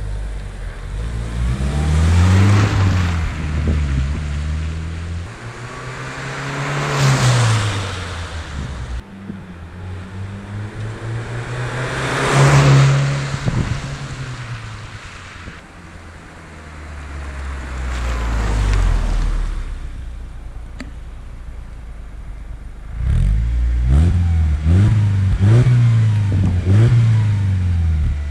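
Mercedes W203 C-Class with a Supersprint rear and middle silencer exhaust, its naturally aspirated engine revved up and dropping back several times in long swells. Near the end comes a quick series of short rev blips.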